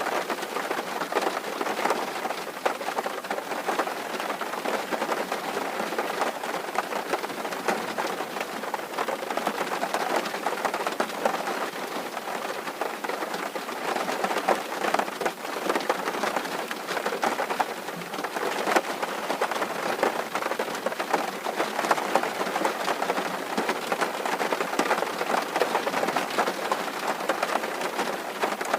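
Rain falling on a tin roof: a dense, steady patter of many individual drop hits.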